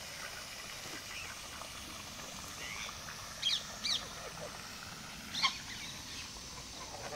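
Short, high-pitched bird calls: two close together about three and a half seconds in and another a couple of seconds later, with fainter chirps scattered around them over a steady background hiss.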